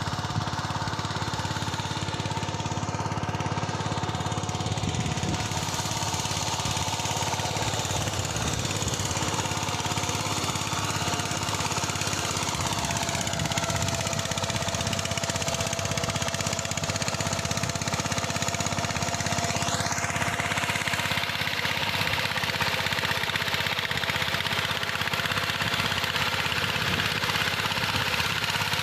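Engine of a ploughing machine running steadily with a rapid knocking beat, its pitch drifting gently up and down now and then.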